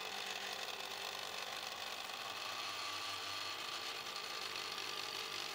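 Homemade 3D printer with a direct granules extruder running as it prints at 20 mm per second: a faint, steady whir of its motors with a few thin held tones.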